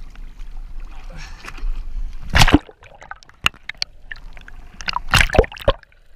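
Sea water sloshing and splashing around a camera at the surface, with a loud splash about two and a half seconds in as it goes under, then muffled underwater gurgling broken by a few sharp splashes near the end.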